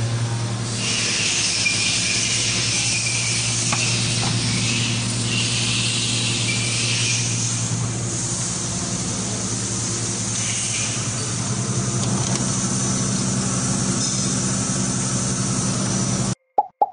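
CNC machining centres running in a machine shop: a steady low hum, with a hiss and a thin high squeal over it that are strong for the first half and then fade back. The sound cuts off suddenly near the end.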